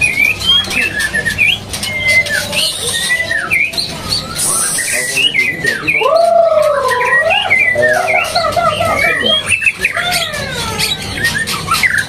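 Several caged birds singing at once, including white-rumped shamas (murai batu): a dense, continuous mix of quick whistled notes, rising and falling glides and chirps. Lower looping whistles stand out about six to eight seconds in, over scattered light clicks.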